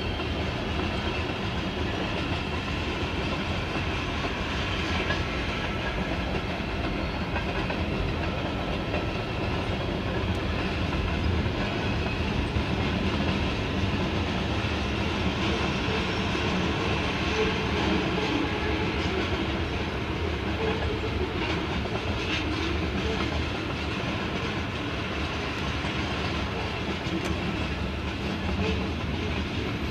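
Freight train cars, a boxcar and then tank cars, rolling steadily past: a continuous rumble of steel wheels on rail with clickety-clack over the rail joints.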